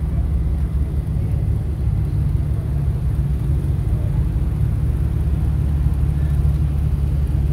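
Steady low rumble with a faint hiss above it and no distinct events.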